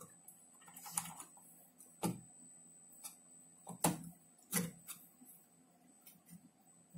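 Light handling clicks and taps: a marker pen being uncapped and the power-supply board and wires being touched against the monitor's sheet-metal chassis. About four sharper clicks fall in the first five seconds, with fainter ticks between.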